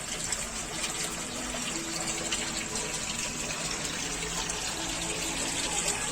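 Tap water rushing steadily through an outdoor household water filter being backwashed, flushing out the filter.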